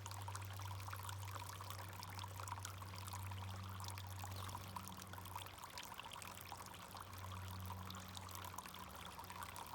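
Backyard fountain's water pouring and splashing steadily, over a low hum that drops out for a stretch about halfway through and again near the end.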